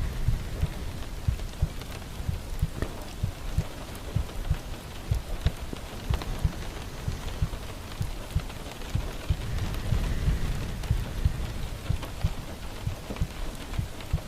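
Rain falling steadily, with many irregular heavy drops thudding on a surface.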